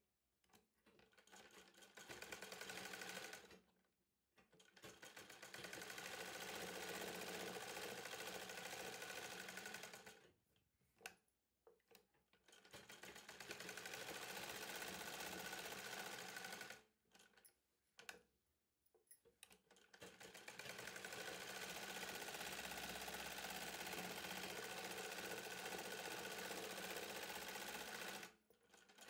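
Electric sewing machine stitching in four runs of several seconds each, stopping briefly between runs.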